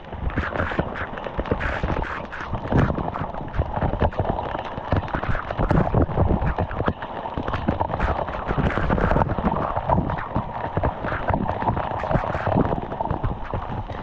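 Waterfall water rushing and splashing, with irregular buffeting and knocks close to the microphone.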